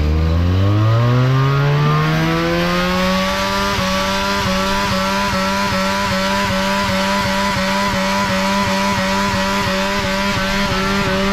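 Benelli 300's parallel-twin engine revving up over about three seconds and held at high revs in a stationary burnout, the rear tyre spinning against the pavement with a steady hiss. The revs drop off right at the end.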